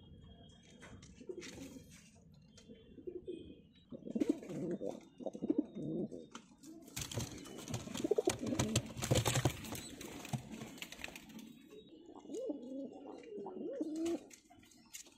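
Domestic pigeons cooing in a loft, low rolling coos in bouts, with a louder stretch of rustling and scuffling in the middle.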